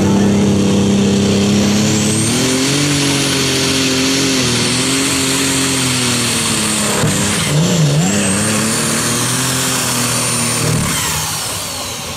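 Modified pulling tractor's engine running hard under load down the track, with a high whine over it that climbs about two seconds in. The engine pitch dips sharply and recovers about eight seconds in. About eleven seconds in the engine cuts off and the whine winds down.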